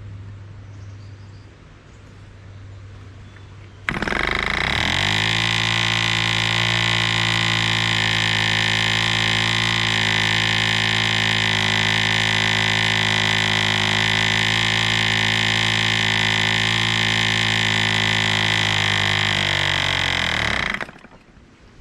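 1947 Drone 4.85 cc diesel model airplane engine swinging a 14 x 6 propeller. It starts about four seconds in, picks up quickly to a steady high-speed buzz and holds it evenly, then drops off and stops shortly before the end.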